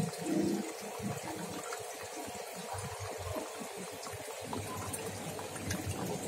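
Aquarium water bubbling and trickling in a fish tank, a rapid low gurgle that eases about four and a half seconds in, over a steady hiss of moving water.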